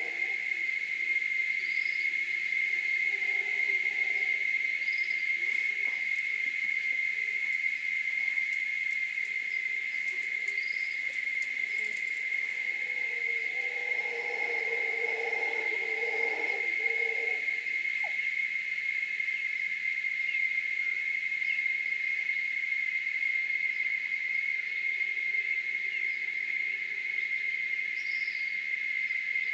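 Evening tropical forest chorus: a steady, high-pitched drone of insects on one pitch, with distant mantled howler monkeys howling in low, moaning bouts that are loudest around the middle. A few short bird chirps come through now and then.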